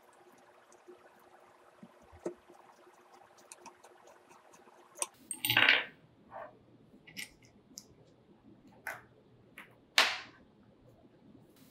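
Small parts of a take-down recurve bow riser being handled and laid on a tabletop: light clicks and knocks of a metal bolt, an Allen key and a plastic cup, with a louder clatter about five and a half seconds in and a sharp knock about ten seconds in.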